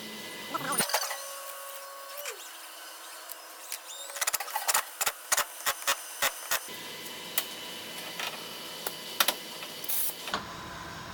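Half-inch bolts being fitted and tightened through a pneumatic cylinder's mounting plate and end cap: sharp metallic clicks and clinks. A quick irregular run of them comes about four to seven seconds in, then a few single clicks later.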